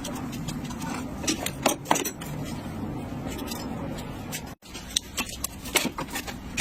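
Scattered light metallic clicks and clinks of hand tools and car parts being handled, over a low steady workshop background.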